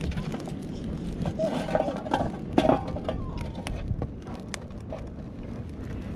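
Wind rumbling on the microphone, with scattered light clicks and knocks and faint distant voices about one and a half to three seconds in.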